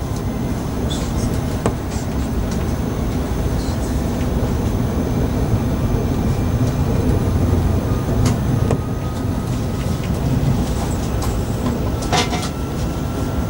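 Passenger train heard from inside the carriage: a steady low rumble with scattered short clicks and knocks.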